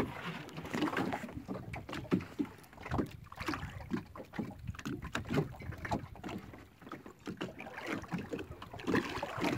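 Water slapping and lapping against the side of a small wooden boat, in uneven splashes and knocks.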